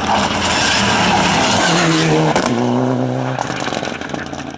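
Mitsubishi Lancer Evolution rally car's turbocharged four-cylinder engine running loud as the car comes close and passes. A steady engine note drops sharply to a lower pitch about halfway through, and the sound then fades as the car drives away.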